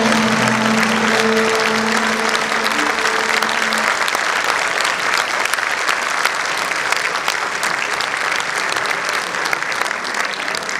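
Audience applauding, a dense, steady patter of many hands. In the first few seconds the music's last held notes ring under the applause, then die away.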